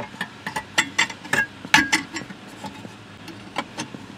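Metal lower-dash brace clinking and knocking against the dash as it is worked up into its slots under the steering column: a quick irregular run of sharp metal clicks in the first two seconds, then a few more near the end.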